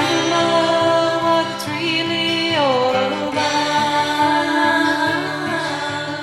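A song: a singing voice holding and gliding between notes over sustained instrumental accompaniment.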